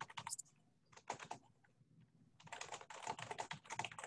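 Computer keyboard typing picked up by an unmuted participant's microphone on a video call: a short run of keystrokes at the start, another about a second in, then steady typing from about two and a half seconds on.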